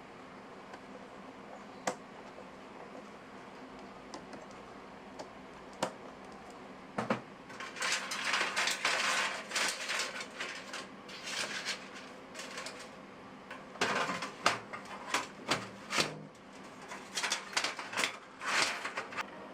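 Computer parts being handled during assembly: a few sharp single clicks, then repeated bursts of clattering and rustling with hard clicks from about seven seconds in, over a low steady hum.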